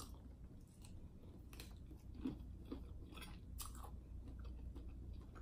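Faint close-up chewing of boiled shrimp: soft, wet mouth clicks and smacks at an irregular pace.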